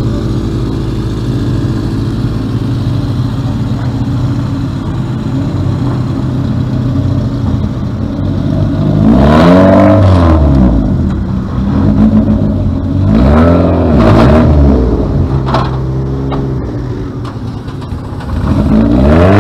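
Rally car engine idling steadily, then revved hard about three times in the second half, each rev climbing and dropping back, with the revs rising again at the very end.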